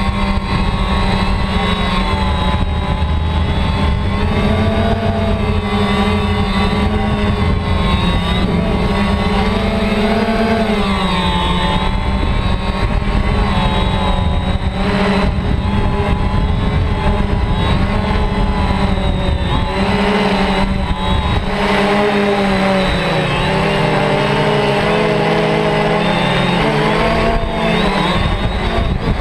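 DJI Phantom quadcopter's electric motors and propellers buzzing steadily in flight, heard close up from the camera mounted on the drone. The pitch wavers and shifts several times as the throttle changes, with a dip about 11 seconds in and again around 20 seconds.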